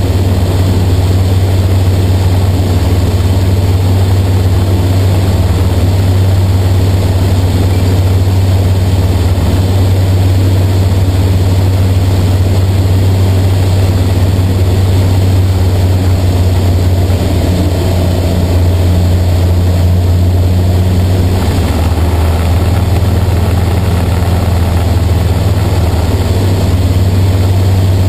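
Engine and propeller of a TL-Ultralight Sting light aircraft in flight, heard inside the cockpit: a steady, loud low drone. About three-quarters of the way through the tone shifts slightly and the hiss above it grows a little louder.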